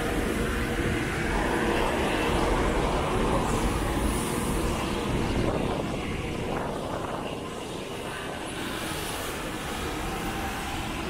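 Steady rumble of passing road traffic, easing off about six seconds in.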